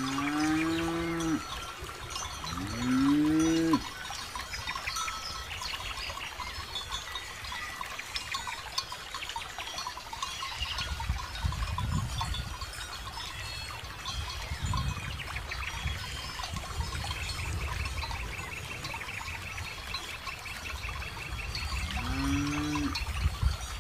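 Cows mooing, twice in the first four seconds and once more near the end, each call rising and then falling in pitch. Between the calls, cow bells clink and jingle steadily as the cattle move about.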